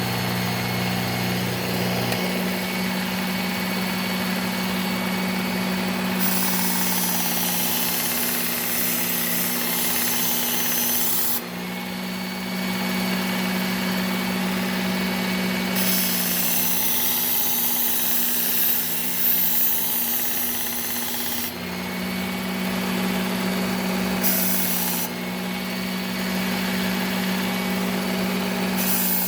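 Electric belt knife sharpener running with a steady hum, with repeated passes of a knife blade across the moving abrasive belt; each pass is a few seconds of grinding hiss over the motor.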